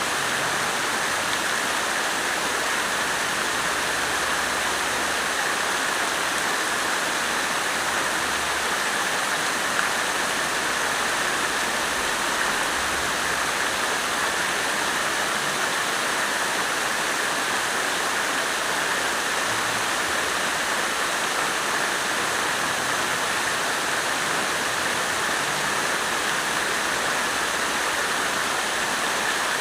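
Water splashing steadily from a fountain, an even, unbroken rush of falling water.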